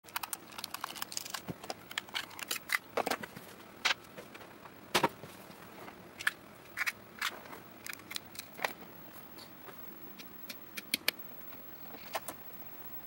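Hands handling a small plastic game console and its cables and plugs: irregular sharp clicks, taps and rattles, busiest for the first nine seconds or so, with a few more near the end.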